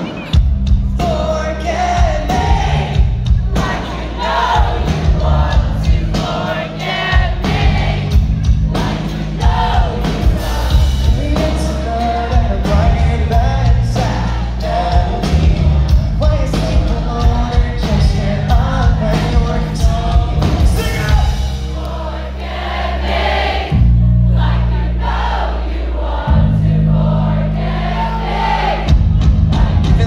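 Live pop-punk band playing loudly through a venue PA, with drums, bass and electric guitar under a lead vocal, while the crowd sings along.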